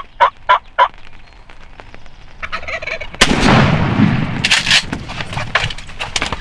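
A wild turkey gobbling in a quick run of pulses, then about three seconds in a single loud shotgun blast that trails off slowly, followed by a few sharp clicks. The shot is a miss at a gobbler.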